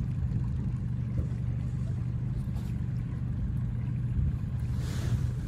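Outboard motor running steadily at slow trolling speed, a low even drone. There is a brief hiss near the end.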